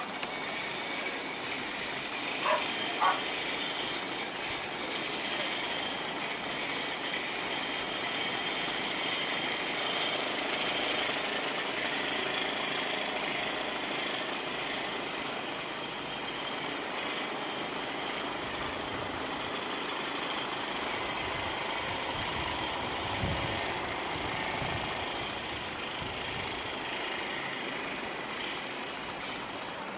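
Airbus A400M Atlas in flight overhead, its four turboprop engines and eight-bladed propellers giving a steady high whine over a broad drone. Two brief louder sounds stand out about two and a half and three seconds in.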